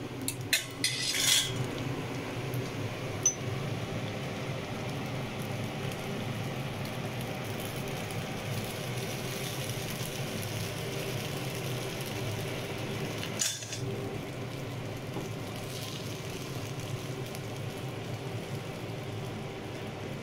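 Kitchen clatter from stir-fried noodles being tipped out of a plastic colander into a wok and handled with utensils: a cluster of clinks and knocks about a second in, a single click soon after, and another knock about two-thirds through, over a steady low hum.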